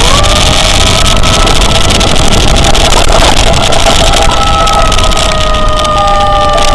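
German-style two-tone emergency siren stepping up to its high note right at the start and holding it, the pitch sagging slowly, over loud road and wind noise from a moving vehicle.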